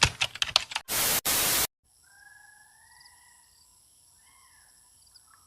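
Rapid typing-like clicks from an intro sound effect, cut off by two short bursts of static hiss, then quiet open-air ambience with a few faint bird calls.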